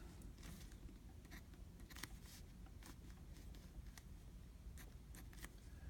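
Gold dip-pen nib in a fountain-pen body scratching faintly on paper in short, irregular strokes, roughly one or two a second.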